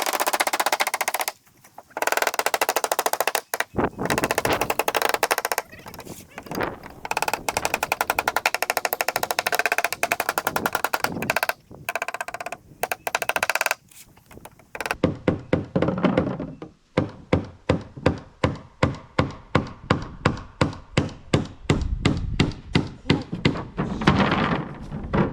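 Hammer driving nails into wooden floorboards: a fast, unbroken rattle of strikes for the first half, then steady single blows about two a second.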